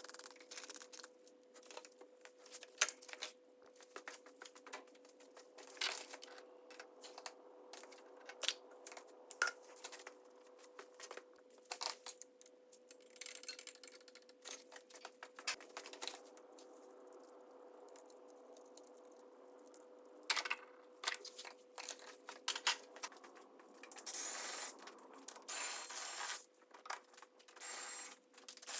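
Scattered clicks, knocks and scrapes of hands handling tools and parts, with stretches of rustling, the longest near the end, over a faint steady hum.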